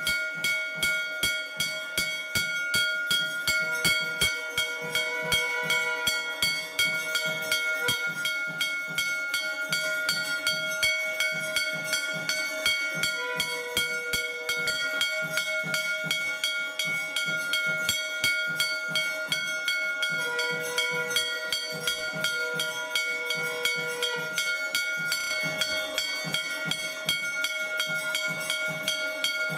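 Brass puja handbell (ghanta) rung continuously for the arati, its clapper striking about four times a second with a steady metallic ring held between strokes.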